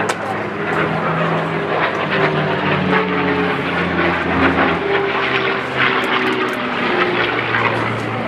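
An airplane flying over, its engine drone loud and steady while its pitch shifts up and down.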